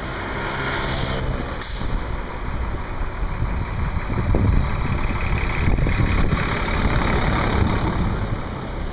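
Wind buffeting a microphone held out of a moving car's sunroof, over street traffic and a city transit bus running close by. The engine and road noise grow louder from about four seconds in as the car draws up beside the bus.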